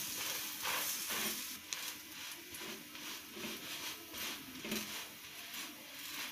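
Butter sizzling under a kulcha on a hot iron tawa, with soft uneven pats as the flatbread is pressed down by hand.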